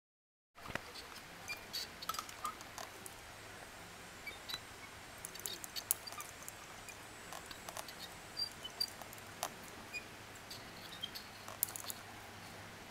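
Faint scattered clicks and ticks, with a few brief high chirps, over a low steady hum; the sound cuts in abruptly after half a second of dead silence.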